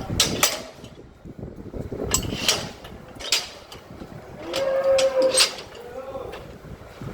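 A cow mooing once, a drawn-out call that rises and falls, about four and a half seconds in, amid scattered knocks and clatter.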